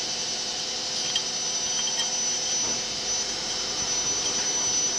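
Steady background hiss with a thin high whine and a faint hum, with a few light ticks.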